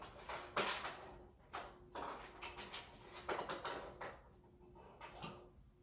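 Irregular rustles, scrapes and light knocks of someone handling things, over a faint steady hum.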